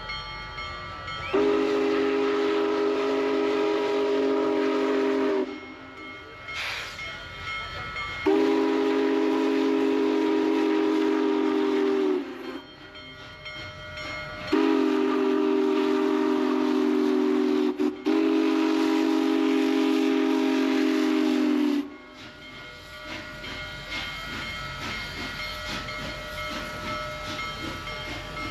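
Union Pacific Big Boy No. 4014 steam locomotive's whistle sounding a chord of several low tones in four long blasts of about four seconds each. The last two nearly run together.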